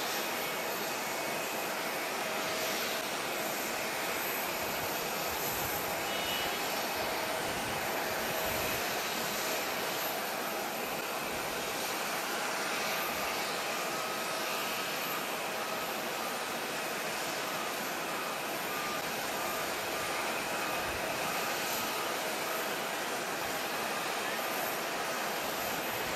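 Steady jet engine noise from aircraft idling and taxiing at an airport: an even rushing hiss with faint steady tones on top.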